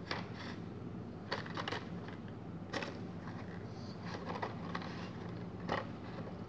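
A few light clicks and rustles of carded Hot Wheels packages being handled and set down, over a steady low hum.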